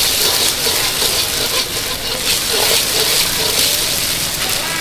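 Fried rice sizzling steadily in a hot wok, with light metallic clinks of a utensil against metal.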